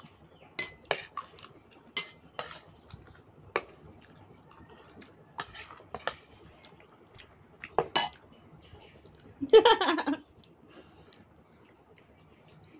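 Metal spoons clinking and scraping on stainless steel plates in scattered sharp clicks as two people eat fast. A short burst of voice comes about three-quarters of the way through.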